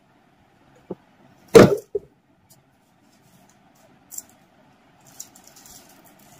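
Items handled at a desk: a small click, then a single loud thump about one and a half seconds in, another click a few seconds later, and faint paper rustling near the end.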